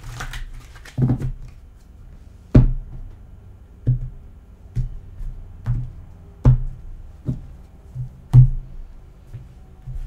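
Tarot cards being laid down and tapped on a tabletop: a series of about ten sharp knocks, each with a low thud, roughly once a second.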